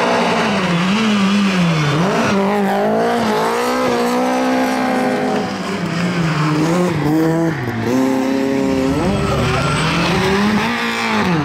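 Car engine driven hard, its pitch climbing and dropping again and again as the car is drifted through bends, with tyres squealing.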